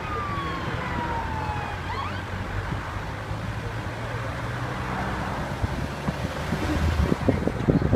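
Car engine and road noise heard inside the cabin, with an emergency-vehicle siren wailing faintly, sliding down in pitch over the first two seconds and then rising again. Irregular thumps grow louder near the end.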